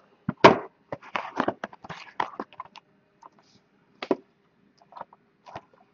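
Shrink-wrapped cardboard trading-card boxes being handled and set down on a wooden tabletop: a quick run of light taps, clicks and wrapper crinkles over the first three seconds, then a single tap about four seconds in and a few faint ticks near the end.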